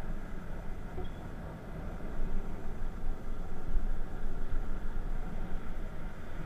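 Aprilia SR 125 scooter's single-cylinder engine running while riding, with a heavy rumble of wind on the camera microphone that grows louder about two seconds in.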